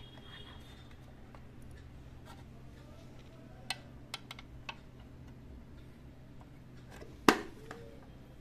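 Plastic clicks from handling an automatic perfume dispenser with its cover open. A loud single snap near the end as its plastic housing is shut.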